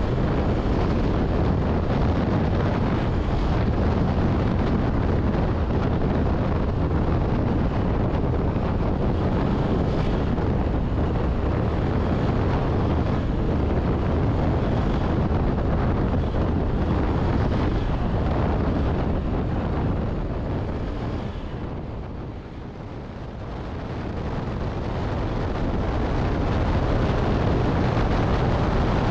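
Wind buffeting the microphone on a moving Wmoto Gemma 125 scooter: a loud, steady rush with a heavy low end. It eases for a few seconds about three-quarters of the way through, then builds back up.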